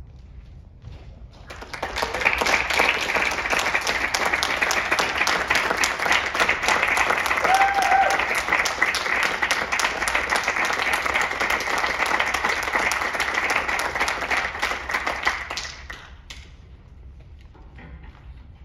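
Audience applauding: dense clapping swells in about a second and a half in, holds steady, and dies away a couple of seconds before the end.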